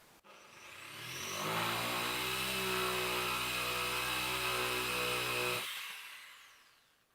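An electric power tool's motor switched on, whining up to speed over about a second, running steadily for about four seconds, then switched off and winding down.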